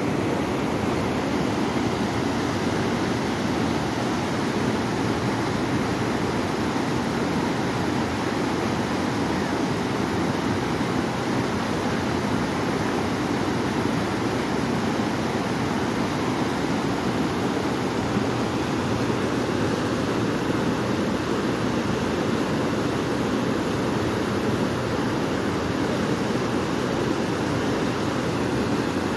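Flood-swollen, muddy mountain river rushing over rocks: a steady, unbroken rush of water.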